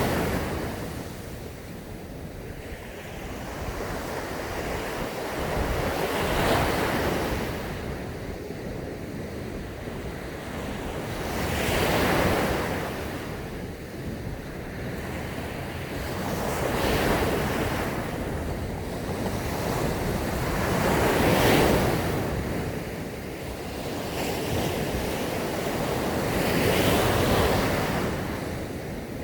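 Sea waves breaking on a sandy beach: five surges, about one every five seconds, each swelling and washing in, with a steady surf hiss between them.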